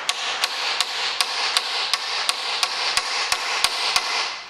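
Light, even hammer taps on the top of a strike-cap screwdriver, about three a second, staking the collar of a driveshaft hub nut down so the nut cannot work loose. A steady hiss sits behind the taps and fades out near the end.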